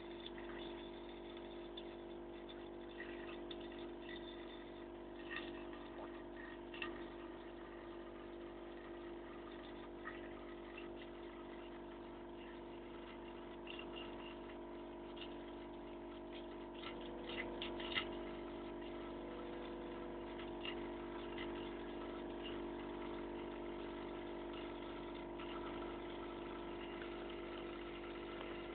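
A thin stream of tap water running into a stainless steel sink, over a steady hum, while a cat laps at the stream in small scattered clicks, busiest around a third of the way in and again past the middle.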